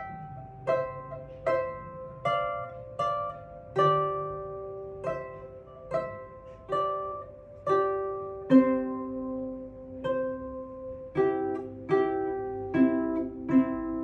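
Lever harp plucked in a slow, even melody, one note about every 0.8 s with each note ringing on. About two-thirds of the way in, lower notes join, plucked together with the melody.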